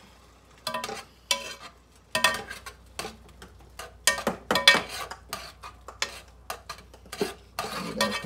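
A spoon stirring crawfish in a pot on the stove, with irregular scrapes and clinks against the pot that start about half a second in and keep coming.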